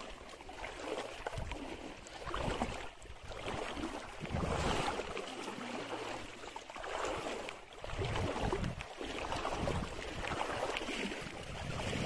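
Shallow water sloshing and splashing around someone wading through it, a swish every second or two.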